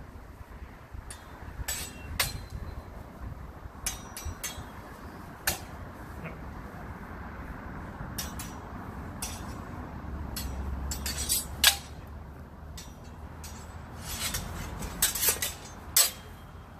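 Steel longswords clashing during sparring: scattered sharp metallic clinks and knocks. The single loudest strike comes about two-thirds through, and a quick flurry of clashes follows near the end.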